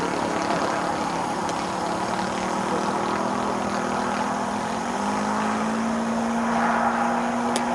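Engine of a radio-controlled Goldberg Ultimate model biplane running steadily in flight, heard from the ground; its pitch steps up about five seconds in.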